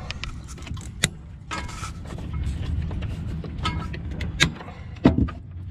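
A few sharp clicks of side cutters snipping through the old fridge's wiring leads, with rattling and rustling from hands working among the cables. A steady low rumble runs underneath.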